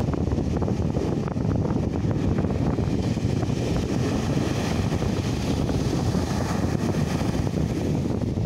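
Sea waves breaking and washing up a sandy shore, mixed with wind blowing on the microphone, as one steady noise.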